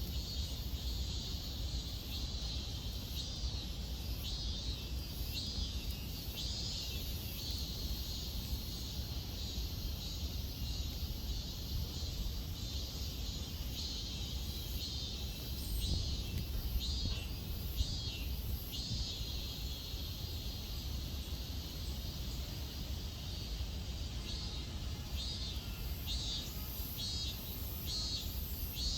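Cicada buzzing in short, irregular bursts over a steady low outdoor rumble.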